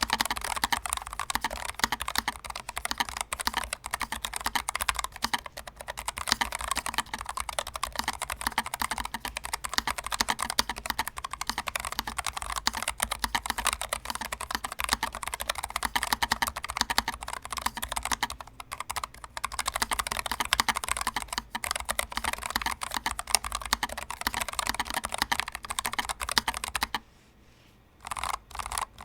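Fast, continuous typing on a NuPhy Air60 low-profile mechanical keyboard: a dense run of keystroke clicks. The typing pauses briefly about 27 seconds in.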